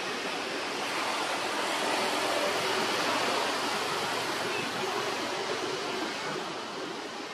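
Steady outdoor rushing noise that swells a little in the middle and fades away near the end.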